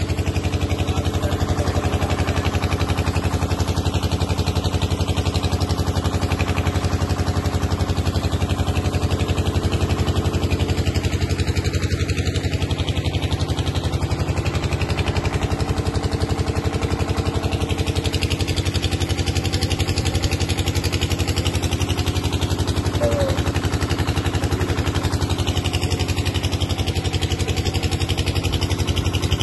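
A motor running steadily at an even speed, with no change in pitch or level.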